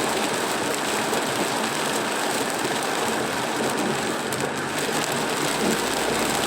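Heavy rain pelting a moving car, with the hiss of tyres on the wet road and a low engine hum under it, heard from inside the cabin; a steady, even rush.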